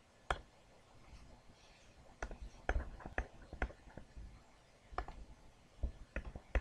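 Irregular light clicks and taps of a pen or marker as a worked math solution is written out, about a dozen scattered strokes, most of them after the first two seconds.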